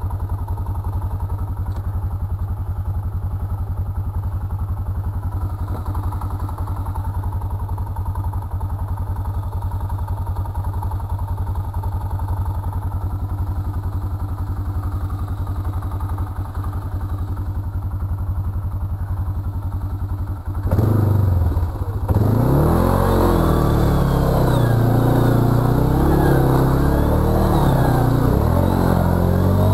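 Arctic Cat ATV engine running steadily at low speed while riding through mud and water. About 21 seconds in, it gives way to music with a stepping bass line.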